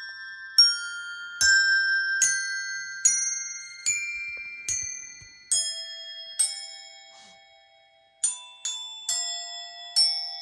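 Music from a speaker test track: single struck notes of glockenspiel-like tuned metal percussion, roughly one a second, each with a sharp attack and a long ringing decay, played through Diatone DS-3000 loudspeakers. The notes pause briefly about eight seconds in, then come a little quicker.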